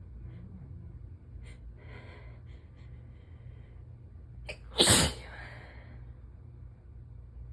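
A sick person's sneeze: a few gasping inhales build up, then one loud, forceful sneeze about five seconds in, trailing off into a breathy exhale.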